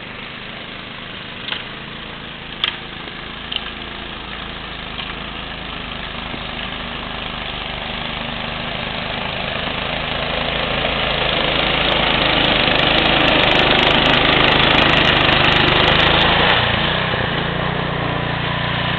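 Snowblower's small engine running steadily, growing louder over several seconds and easing off a little near the end, with a few sharp knocks in the first few seconds.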